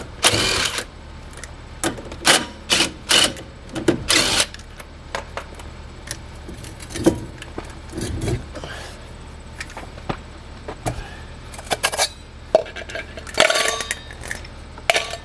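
Lug nuts and tools being handled on a trailer wheel: a string of separate sharp metal clinks and clanks, some in short clattering runs.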